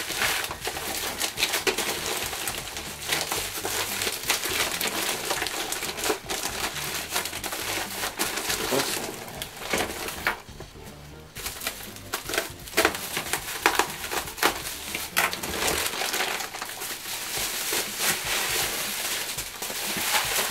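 Bubble wrap and plastic packaging rustling and crinkling as they are handled and pulled off the oscilloscope, a dense run of crackles with a short lull about halfway through.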